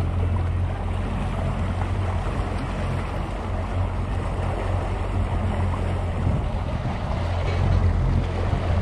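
Boat motor running steadily as the boat cruises slowly through shallow water, a low hum under a wash of wind and water noise.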